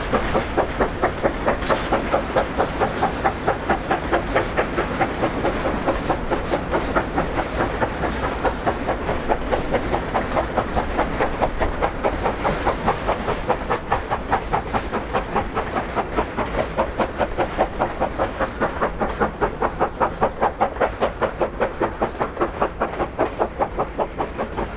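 China Railways JS class steam locomotive working a train, its exhaust beating in a fast, even rhythm.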